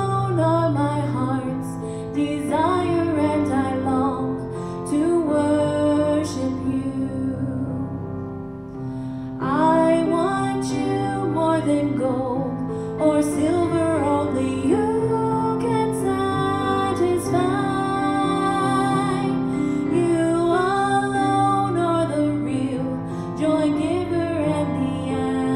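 A woman singing solo into a handheld microphone over instrumental accompaniment. Her voice pauses briefly about eight seconds in, then comes back in.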